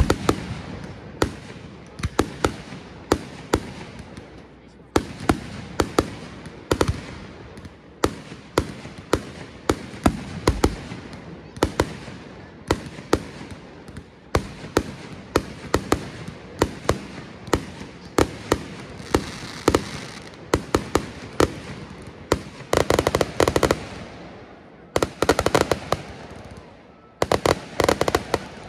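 Fireworks display: a steady run of sharp bangs, about one or two a second. In the last few seconds come several rapid volleys of many quick cracks.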